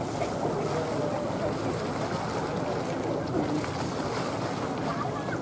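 Faint murmur of crowd voices over a steady wash of outdoor background noise, with no firework bangs.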